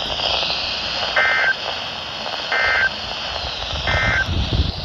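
Three short bursts of SAME digital data tones from NOAA Weather Radio, about 1.4 seconds apart: the end-of-message code that closes an alert. They sound over steady radio hiss.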